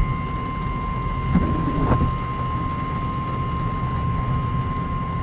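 Emergency weather alert tone: one steady, high single-pitched beep held without a break, the warning alarm that comes before a broadcast flash flood warning. A heavy low rumble runs underneath it.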